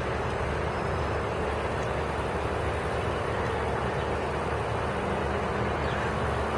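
GWR Class 150 diesel multiple unit pulling away, its underfloor diesel engines running under a steady, even rumble.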